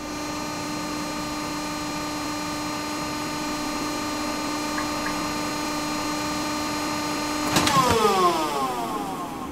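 Cable car running along its cable with a steady mechanical hum. A bit over three-quarters of the way through a clank sounds, and the hum falls steeply in pitch and dies away as the car comes to a stop.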